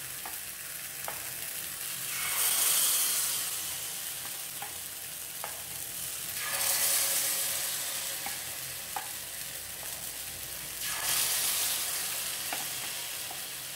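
Appam batter sizzling in the hot oiled cups of a paniyaram pan as spoonfuls are poured in. The hiss swells three times as fresh batter hits the pan, with a few light clicks of the metal spoon between.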